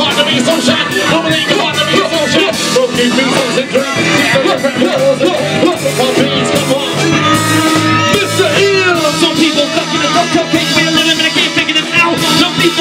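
Live band music with saxophone, guitar and drums playing a steady groove between rap verses.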